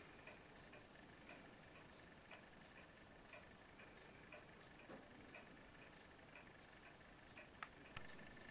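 Faint, even ticking of a clock, about two ticks a second, in an otherwise near-silent room.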